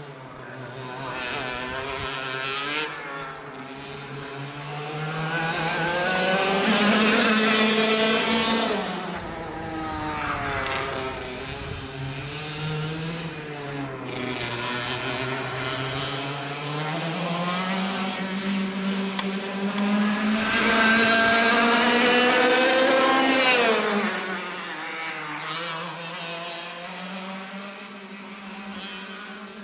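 IAME 125 two-stroke kart engine racing around the circuit, its pitch climbing as it accelerates and falling away as it lifts off for corners. It comes close and is loudest twice, about seven and twenty-two seconds in.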